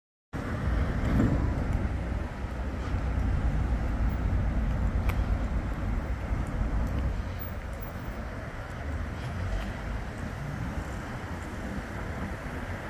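Bombardier Flexity 2 tram running past close by: a steady low rumble of its wheels on the rails and its running gear, starting suddenly and easing slightly in the second half.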